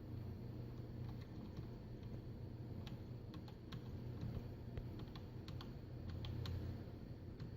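Keys clicking on a computer keyboard, a run of quick irregular taps through the second half, over a steady low hum.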